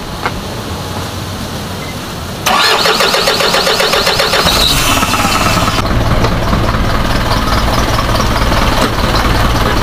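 Isuzu 4HJ1 four-cylinder diesel engine cranked by its starter motor for about three seconds, then catching and settling into a steady idle. The truck is in for misfiring, low power and hard starting.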